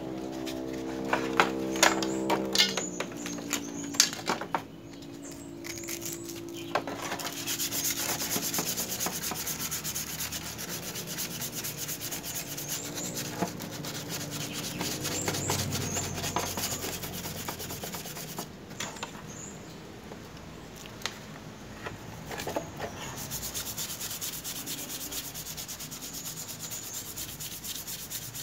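Sandpaper rubbed by hand over a car grille in quick, even rasping strokes. A few sharp knocks come in the first few seconds as the part is handled.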